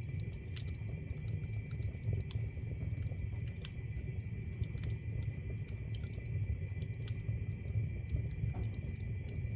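Wood fire burning in a fireplace: irregular crackles and sharp pops over a steady low rumble of flame.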